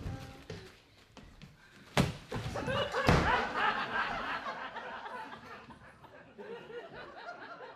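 Two sharp bangs about a second apart, then audience laughter that gradually dies down.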